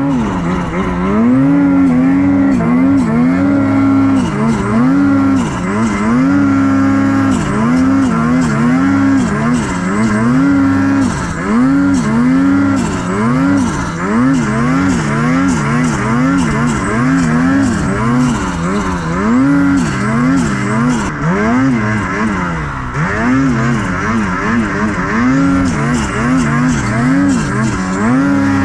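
Mountain snowmobile's two-stroke engine being blipped and revved over and over while riding through deep powder, its pitch rising and falling about once or twice a second.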